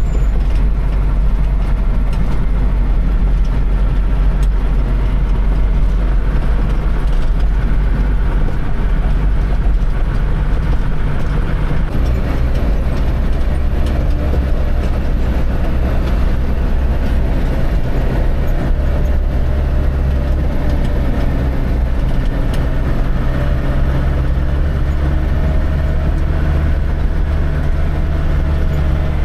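Dump truck engine running steadily under way, a loud low drone that steps up in pitch about twelve seconds in.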